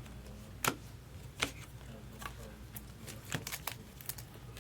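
Trading cards being handled and flipped through, giving a few sharp clicks and taps: two spaced about a second apart, then a quick cluster a little past three seconds in, over a low steady hum.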